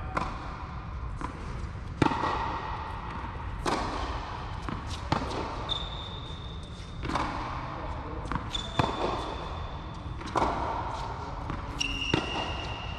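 Tennis rally: a ball struck by rackets and bouncing on the court, a sharp hit about every one and a half to two seconds, each echoing in a large hall, with fainter bounces between and a few short high squeaks.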